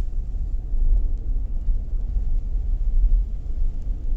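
Steady low rumble of a car driving slowly, heard from inside the cabin: engine and tyre noise on a wet, icy street.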